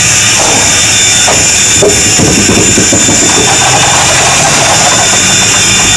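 Strasburg Rail Road No. 90, a 2-10-0 steam locomotive, moving slowly: a steady high hiss over a low mechanical rumble.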